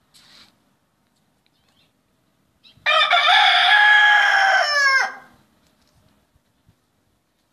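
Rooster crowing once: a single loud call about two seconds long, starting about three seconds in and dropping in pitch at the end.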